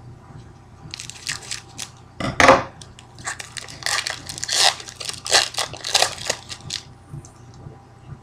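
Shiny hockey card pack wrapper being torn open and crinkled by hand, in a series of crackling bursts, the loudest about two and a half seconds in.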